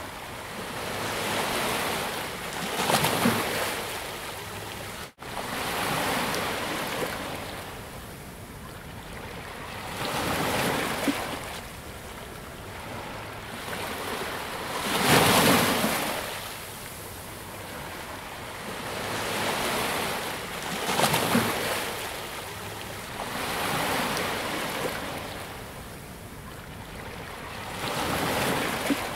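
Sea waves breaking and washing up a sandy beach, the surf swelling and ebbing every few seconds with a few bigger breakers. A split-second gap in the sound about five seconds in.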